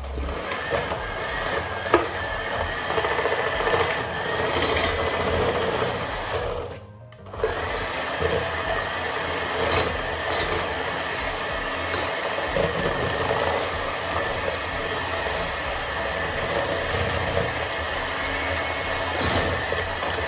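Electric hand mixer running steadily, its beaters whirring in a stainless steel bowl as they cream butter and sugar, with a few clicks of the beaters against the bowl. It stops for a moment about seven seconds in, then starts again.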